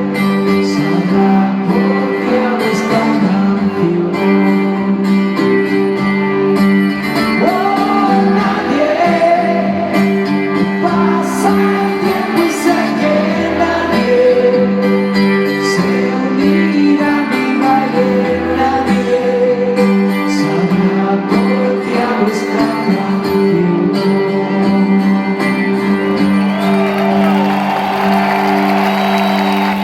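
Music: a song with singing over sustained instrumental chords and a wavering melody line.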